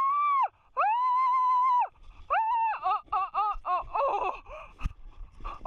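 A person squealing with excitement while riding a sled downhill: two long high-pitched squeals, then a quick string of shorter wavering squeals.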